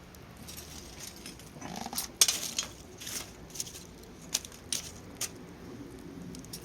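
Metal utensils and cookware clinking and scraping in a string of irregular light knocks, the sharpest about two seconds in.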